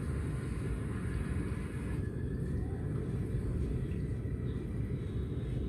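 Steady low rumble of background noise, even throughout, with no distinct sounds standing out.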